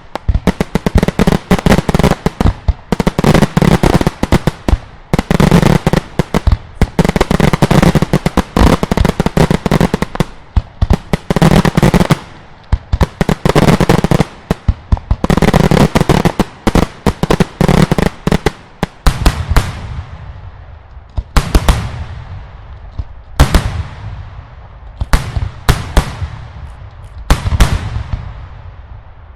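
Daylight fireworks display: dense volleys of rapid, loud bangs and crackle, one volley every second or two. Near the end they thin out into separate heavy booms, each with a long echoing tail.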